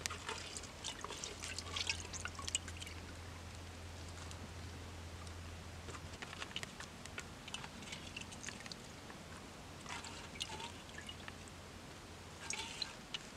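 A hand scooping frogs out of water in a clay pot: small splashes and drips of water in several short bursts with pauses between.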